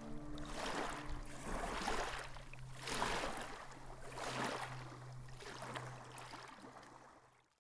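Water washing in repeated swells about once a second, with a low steady hum underneath. It fades out near the end.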